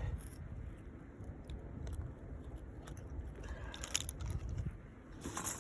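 Crunching and scraping handling noises over a low rumble, with a few sharp crackles about four seconds in and again near the end, as a fish is worked up through a hole in the ice.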